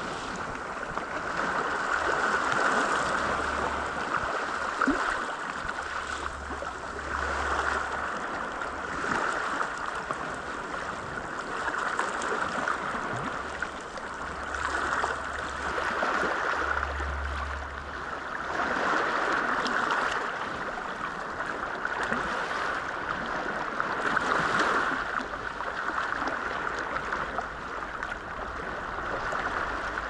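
Small sea waves washing onto a pebble beach and draining back through the stones, swelling and easing every four or five seconds.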